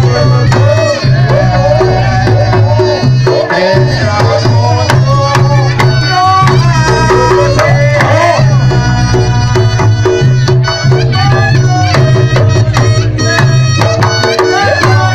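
Reog Ponorogo gamelan music: a wavering, reedy melody over hand drums and a repeating low pulse.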